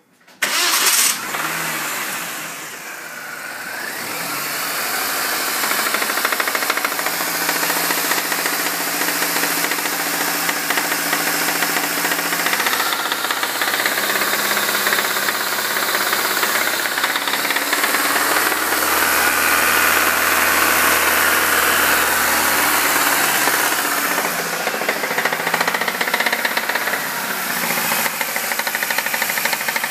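2005 MINI Cooper S engine, a supercharged 1.6-litre four-cylinder, starting about a second in and then running with a clacking, clicking noise. Its engine speed shifts a few times.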